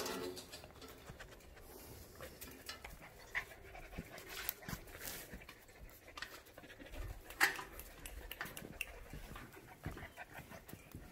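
Bernedoodle puppies panting, with scattered light clicks and knocks from their moving about.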